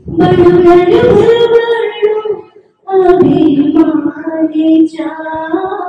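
A woman singing solo into a handheld microphone, in long held notes: two phrases with a short break a little before halfway.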